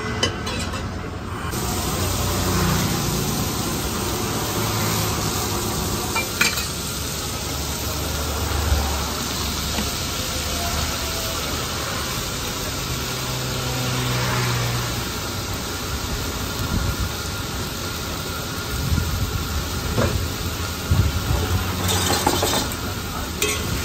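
Chopped tomatoes, green onions and chillies sizzling in hot oil on a large flat iron griddle, a steady hiss, with a few sharp clicks, most of them near the end.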